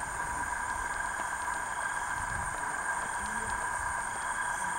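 Night insect chorus: a steady, even shrill of several insects calling at fixed high pitches.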